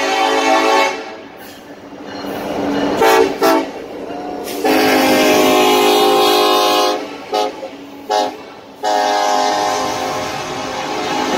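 Norfolk Southern diesel locomotive's multi-chime air horn sounding as the train passes close by. Long blasts are broken by pairs of short toots, over the rumble of the passing train.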